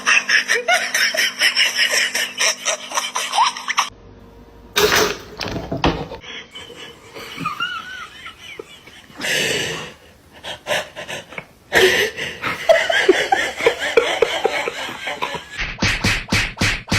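People laughing in rapid, pulsing bursts, broken off and resumed, with other short sounds in between.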